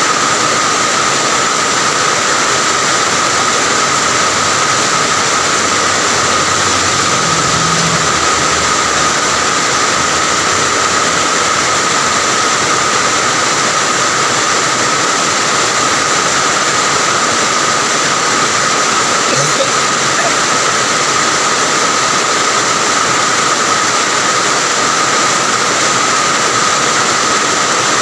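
Heavy rain falling steadily, a loud, even hiss that never lets up, with a steady high-pitched tone running through it.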